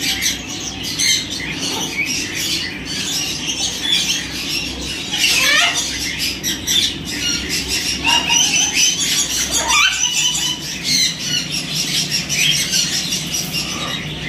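Caged parrots squawking and chattering, a constant mix of short high calls with a couple of louder rising calls about five and ten seconds in.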